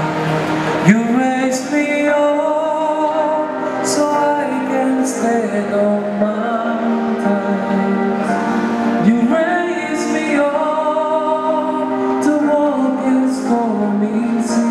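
Male singer singing into an amplified microphone over a musical accompaniment. The voice comes in about a second in and holds long notes.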